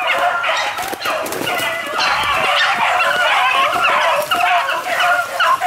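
A pack of beagles baying on a swamp rabbit chase, many voices overlapping into a continuous cry.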